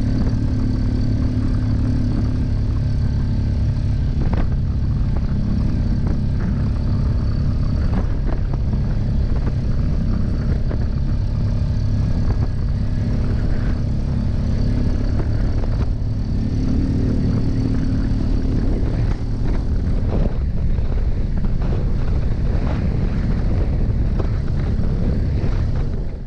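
ATV engine running steadily under way on a trail, with a few sharp knocks along the way.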